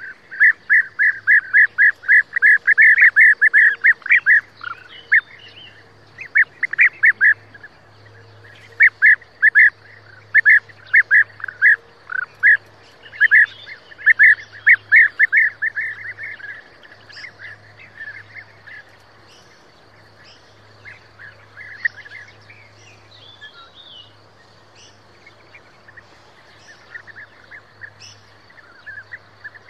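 European bee-eaters calling: quick runs of short, repeated calls, several a second, loud through the first half and then fainter and more scattered.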